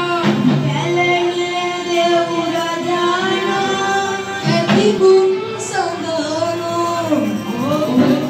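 Music with a woman singing, holding long notes that slide up and down in pitch over accompaniment.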